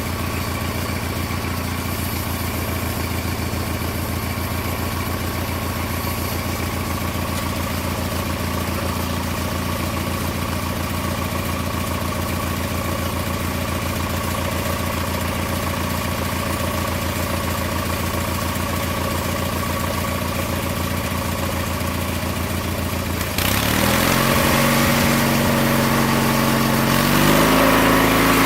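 Small lawn mower engine, taken off an old Snapper mower, running the homemade sawmill: it idles steadily, then about 23 seconds in it revs up suddenly, getting louder and rising in pitch in two steps, and holds at the higher speed.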